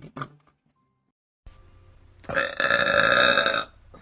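A man burping: a short burp right at the start, then a long, loud burp lasting over a second.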